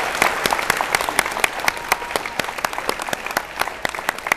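Audience applauding, a dense patter of hand claps with sharp individual claps standing out.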